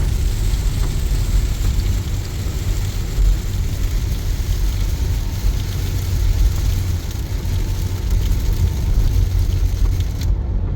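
Car driving on a motorway in heavy rain: a steady low road rumble under an even hiss of rain and wet tyres, with faint scattered drop ticks. The hiss drops out briefly near the end.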